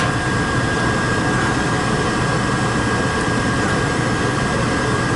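Lennox GCS16 rooftop furnace's draft inducer motor running steadily, with a thin high whine over a low hum. It runs while the burner fails to spark or light, because the ignition control is putting out no power.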